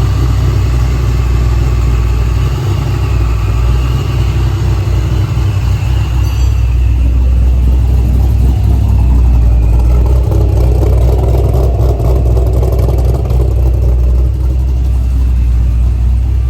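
Supercharged C6 Corvette Z06's 7.0-litre LS7 V8 running steadily after a rebuild.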